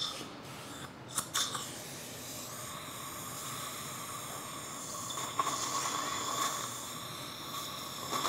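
Dental implant motor's handpiece running with a steady whine as it threads a mini dental implant into the upper jawbone, over the hiss of a suction tip. A couple of sharp clicks about a second in, and the whine grows stronger around halfway.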